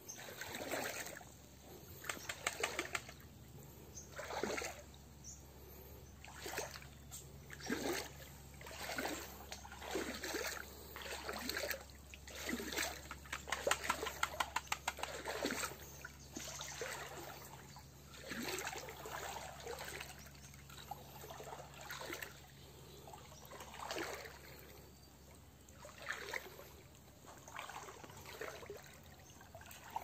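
Legs wading through shallow water, a splash and slosh with each step about once a second, loudest around the middle.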